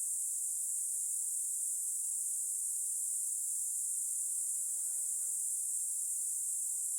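Steady high-pitched drone of an insect chorus, holding unchanged throughout.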